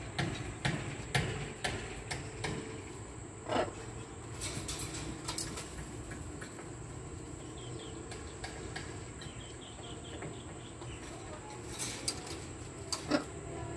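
Quiet outdoor background with a steady high-pitched insect-like whine and scattered light clicks and taps; one short, sharper sound about three and a half seconds in.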